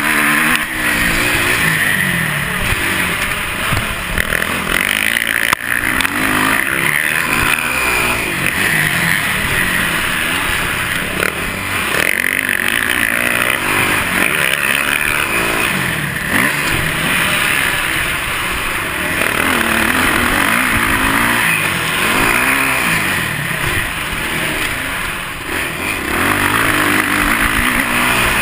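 Dirt bike engine heard up close on the bike, its pitch repeatedly climbing and dropping as the rider accelerates and backs off through the turns.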